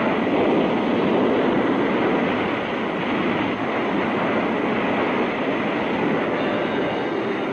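Churning tsunami floodwater: a steady, loud rush of water noise.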